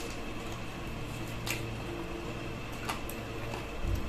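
Mouth sounds of eating with the hands: a few sharp smacks and clicks from chewing and licking sauce off the fingers, over a steady low hum.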